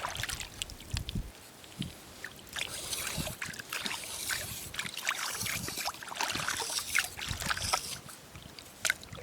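Hands digging in wet sand and shallow seawater on a tidal flat while hunting for clams: irregular wet squelches and sloshes, some of them sharp.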